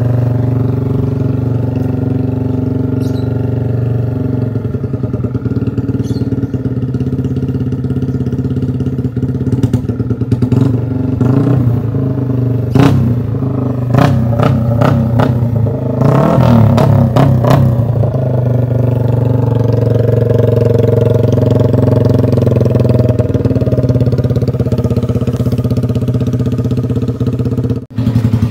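Modified Yamaha R15 V3's single-cylinder four-stroke engine idling steadily with a deep exhaust note. About halfway through come a series of sharp throttle blips and exhaust cracks, then it settles back to idle.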